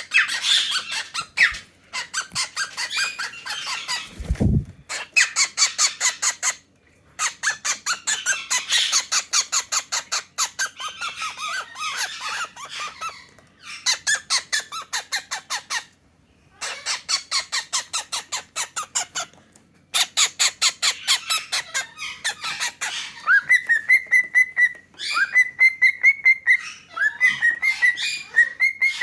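Cockatiels calling in long bouts of rapid, harsh pulsed chatter with short pauses between, then clear whistled notes near the end: an attention-seeking display. A short dull thump about four seconds in.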